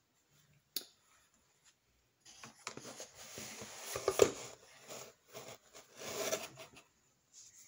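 Rustling and flapping of a t-shirt as it is handled and unfolded, uneven and loudest a little past the middle, after a single light click about a second in.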